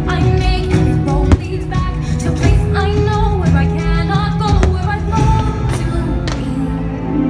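Fireworks show soundtrack: music with singing, broken by sharp firework bangs, the loudest a little over a second in.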